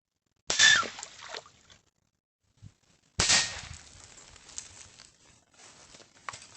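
Two sharp bangs about two and a half seconds apart, each starting suddenly and dying away within about a second, the first with a brief ringing tone: a nail gun firing pellets into a target.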